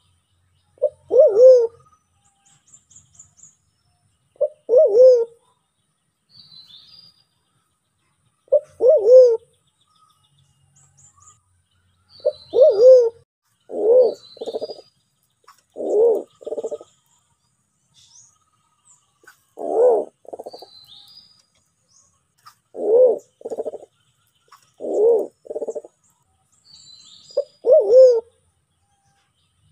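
Sulawesi black pigeon calling: about ten low hooting coos every two to four seconds, some single notes that rise and fall in pitch, others given as a quick double note. Faint high chirps of small birds sound between the coos.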